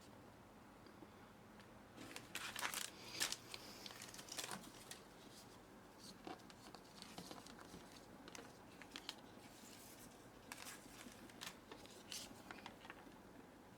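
Blind-box packaging being opened: a quiet start, then from about two seconds in a string of short crinkles, rustles and tears of wrapping, loudest soon after they begin.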